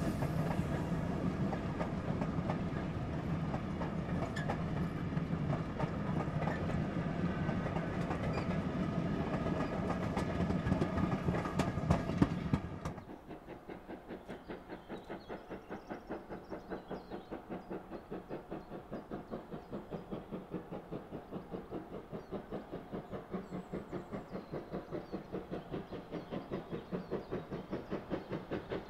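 Steam train running on the rails: a loud passing train with steady ringing tones for about thirteen seconds, then, after a sudden cut, a quieter, even rhythm of beats at about three a second.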